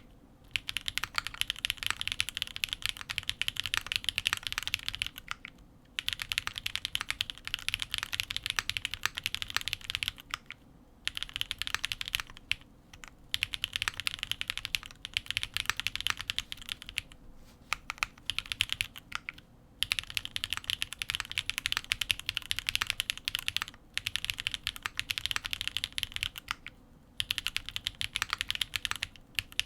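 Fast typing on a custom tenkeyless mechanical keyboard with an aluminium plate and stock Gateron RAW switches: a dense run of crisp key clicks. The runs of typing last a few seconds and stop for short pauses about every four to six seconds.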